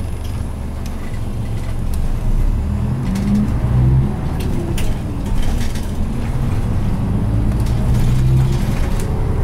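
Mitsubishi Fuso Aerostar bus's 6M70 turbocharged inline-six diesel, heard from inside the bus, idling at a stop and then pulling away under acceleration: the engine note rises about two seconds in, drops briefly about five seconds in as the manual gearbox is shifted up, then climbs again.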